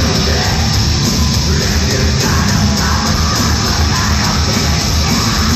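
Heavy metal band playing live at full volume: distorted guitars over a fast, steady drum beat, with the singer's vocals.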